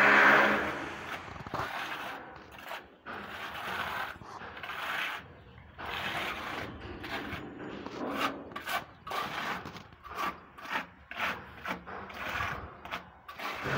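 Irregular rubbing and scraping strokes of a hand tool working wet texture paint on a textured exterior wall. A passing vehicle, the loudest sound, fades out within the first second.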